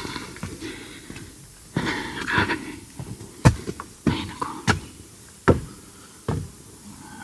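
Footsteps: a series of about six sharp steps, roughly two-thirds of a second apart, starting about halfway in, after a short rustle of noise about two seconds in.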